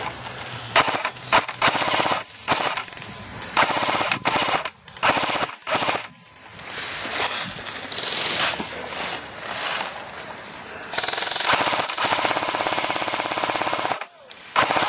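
Airsoft guns firing fully automatic, a fast rattle of shots in bursts. Short bursts come one after another through the first half, then longer sustained strings of fire in the second half, stopping briefly just before the end.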